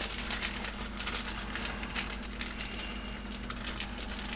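Small plastic hardware bag crinkling as it is handled and opened, with the metal shoulder bolts and nuts inside clinking against each other in scattered light clicks.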